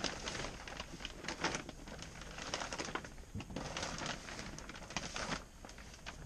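Heavy plastic shrink-wrap film rustling and crinkling in irregular bursts as it is pulled and dragged by hand over a boat's frame.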